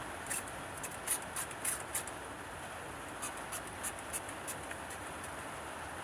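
Hand spray bottle squirting water onto wet hair in short, quick spritzes, several a second at first and sparser later, over a steady background hiss.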